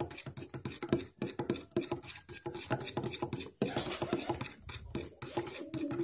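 A metal utensil stirring a thick milky nectar mixture in a plastic bowl, with quick, irregular clicks and scrapes as it knocks against the bowl.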